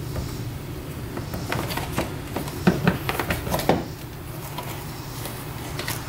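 Plastic clicks and knocks as a fog light is worked loose by hand inside a car's front bumper opening, a quick run of them in the middle, over a low steady hum.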